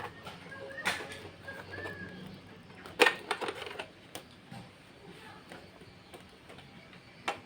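Scattered plastic clicks and knocks from handling the opened Lenovo C20-00 all-in-one PC's casing and LCD panel. The loudest knock comes about three seconds in, followed by a few lighter taps, with another click near the end.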